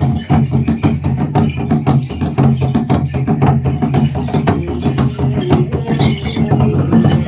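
Limbu shamanic ritual music: fast, dense percussion strikes over a steady low droning tone.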